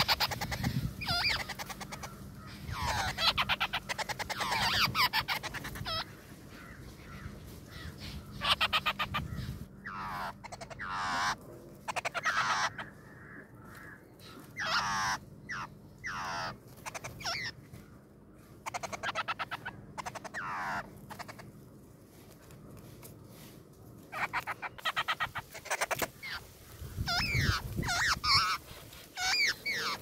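Nestling birds begging with harsh, rapid chattering calls, in bouts of one to three seconds with short quiet gaps between them.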